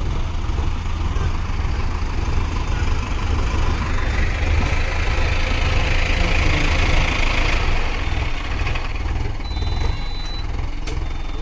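Mahindra tractors' diesel engines running under load as they tow a tractor stuck in deep mud, with a steady low engine drone throughout. The noise swells louder for a few seconds around the middle.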